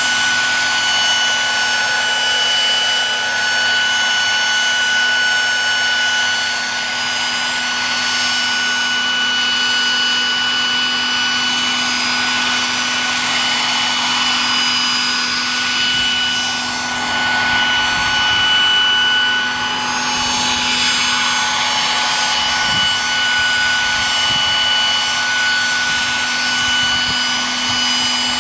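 Large radio-controlled MD900 scale model helicopter hovering: a steady high-pitched whine from its drivetrain over the even rush of the rotor blades.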